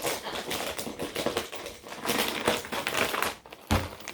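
A plastic snack bag of shrimp chips crinkling as it is handled and squeezed, with a knock near the end.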